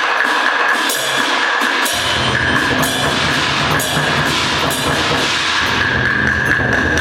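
Chinese percussion ensemble playing: a dense run of dry clacking strokes over a steady high ringing tone, with deep drum beats joining in about two seconds in.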